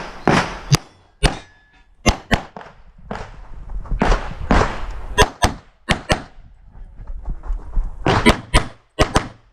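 Handgun shots fired during a practical-shooting course of fire, many in quick pairs about a quarter-second apart, with pauses of a second or more and rustling noise between the strings.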